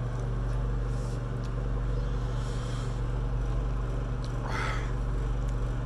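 A steady low hum, with a man's sharp breath out about four and a half seconds in, a reaction to the burn of a hot chili pepper.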